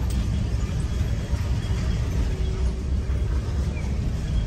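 A vehicle driving slowly over a cobblestone street, heard from inside the cab: a steady low rumble of engine and tyres.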